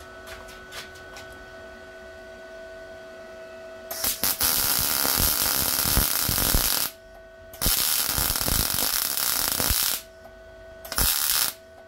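Arccaptain MIG 200 welder arc crackling as it welds a motorcycle exhaust catalyst casing back together, in three runs: the first starts about four seconds in and lasts about three seconds, the second about two and a half seconds, the last short, near the end. A steady hum sounds before and between the runs.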